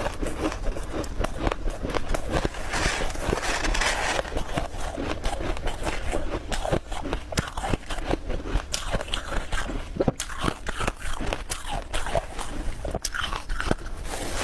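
Ice being bitten and chewed close to the microphone: a dense, irregular run of crunches and crackles.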